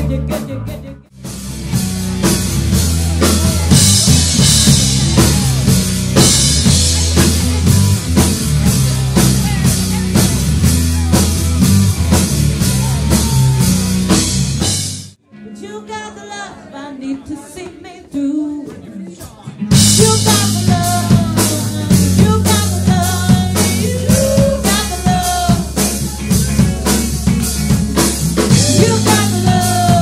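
Live pop-rock band playing: a drum kit, bass guitar and electric guitar under a woman singing lead. About halfway through the music drops to a much quieter passage for about four seconds, then the full band comes back in.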